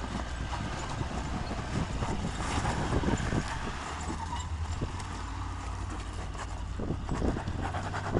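A 4x4 rock crawler's engine running low and steady at crawling speed, its note rising a little about halfway through, with irregular knocks and rustling as it works over rock and brush.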